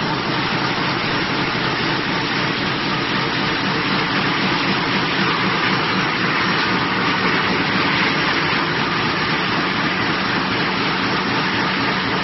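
Mini coil-slitting line running: a steady mechanical noise as metal strip feeds through its rotary slitting knives and rollers.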